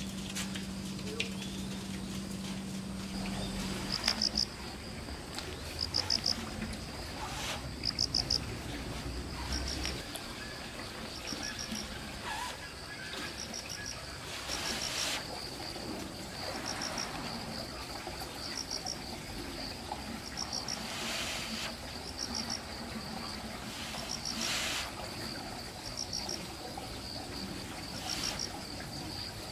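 Insects chirping: short bursts of several rapid, high-pitched pulses repeat every second or two over a steady high trill, with a low hum that stops about four seconds in.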